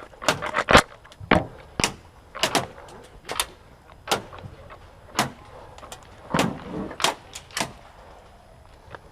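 Airsoft guns firing irregular single shots, heard as sharp snaps, some in quick pairs and clusters, with a few duller thuds among them.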